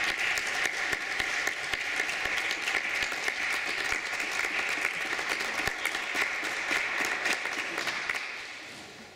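Audience applauding steadily, dying away in the last second or so.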